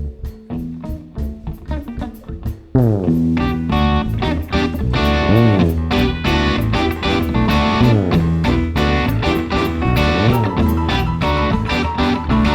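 Live rock band playing an instrumental passage: a sparse groove of bass and drums with ticking cymbals, then about three seconds in the full band with electric guitar comes in much louder, with sliding notes over the steady bass.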